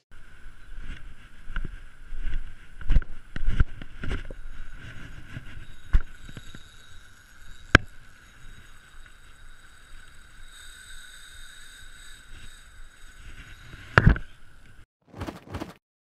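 Handling noise from a fishing rod and reel held close to the microphone: uneven knocks and rustles with a few sharper taps, over a faint steady high whine. Two short bursts come just before the end.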